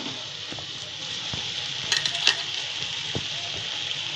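Hot oil sizzling in a kadhai as crumbled boiled potatoes are tipped in onto fried green chilli paste, with a metal spoon clicking and scraping against the steel bowl and pan a few times, most around two seconds in.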